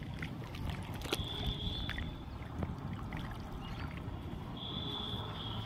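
Water splashing and dripping as a cast net is hauled up out of a shallow flooded ditch, with small splashes and drips throughout.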